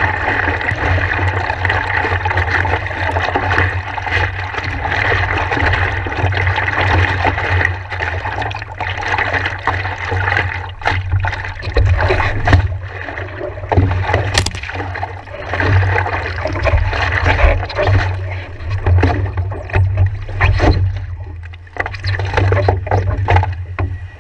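Water sloshing and splashing around a stand-up paddleboard close to the microphone, with a low rumble underneath. Steady at first, it breaks up about a third of the way in into uneven separate splashes.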